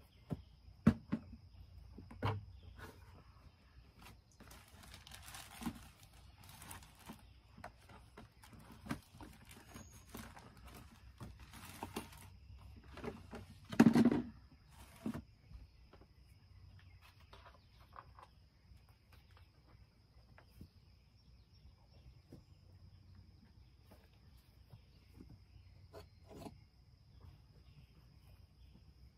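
Outdoor rural ambience: scattered knocks, clicks and rustling, with one louder sound about fourteen seconds in, over a faint steady high-pitched tone.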